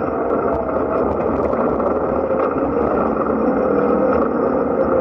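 Side-by-side UTV running steadily at speed, its engine noise mixed with tyre rumble on a dirt trail and wind through the open cab.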